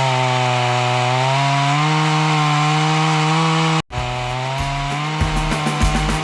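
Chainsaw running at a steady high speed, its pitch rising a little about two seconds in. It cuts off abruptly about four seconds in, then runs on with a few low knocks.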